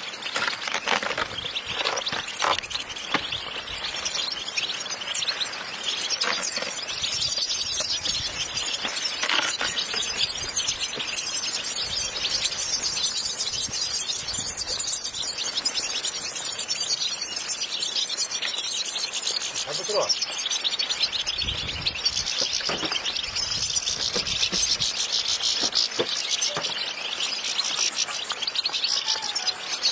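A large flock of European goldfinches chirping and twittering all at once in a dense, continuous chorus.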